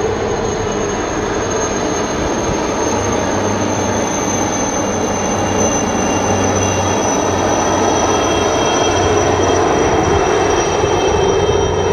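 Helicopters flying over in a formation of three: a steady rotor and engine drone with a thin high whine that slowly drops in pitch, growing a little louder in the second half.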